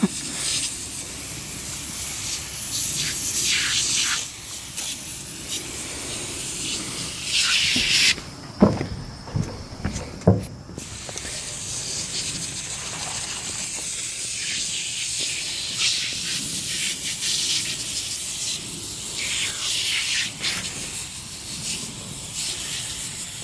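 Aerosol can of foaming cleaner hissing in long sprays over a transmission case. About eight seconds in the spraying pauses for a couple of seconds, broken by a few short knocks.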